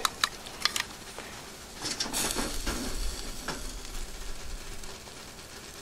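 Utensils clicking and scraping against an aluminium pot as chicken hot-pot is dished out into a bowl, over a low, steady sizzle of cooking. There are a few light clicks near the start and a busier patch of scraping about two seconds in.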